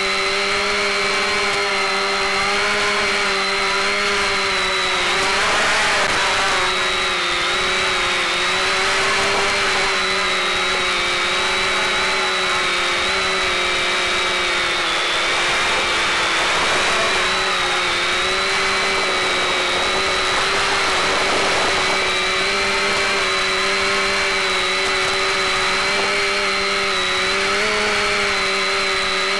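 SK450 quadcopter's electric motors and propellers in flight: a steady whine at several pitches that drift up and down slightly together as the throttle changes. It is heard through the FPV video downlink's audio, with a steady low buzz underneath.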